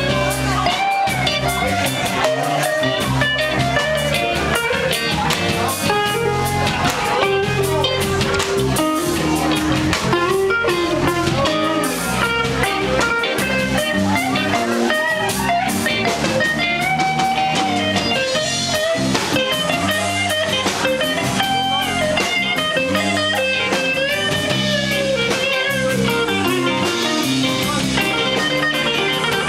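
Live electric blues band playing an instrumental passage: electric guitars, electric bass and drums, with harmonica, the lead line bending between notes.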